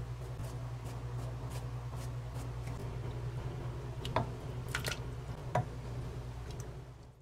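Doenjang jjigae being ladled from a pot into a bowl: soft wet splashing and a few light clinks of the ladle against the pot in the second half, over a steady low hum.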